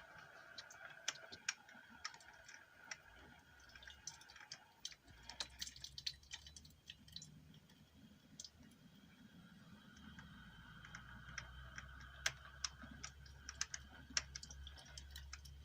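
Irregular light clicks and ticks from a Black & Decker Spacemaker ODC-325 coffee maker, with a low steady hum coming in about five seconds in.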